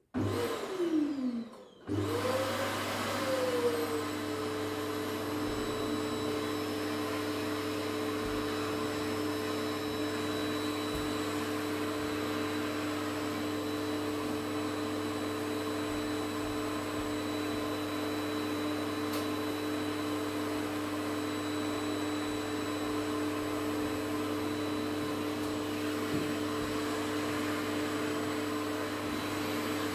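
Red canister vacuum cleaner switched on, cut off at once with its motor winding down in falling pitch, then switched on again about two seconds in. It spins up and settles into a steady running hum.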